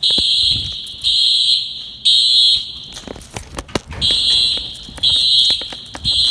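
Simplex fire alarm horns sounding the temporal-3 evacuation pattern: three high-pitched half-second blasts a second apart, a pause of about a second and a half, then three more.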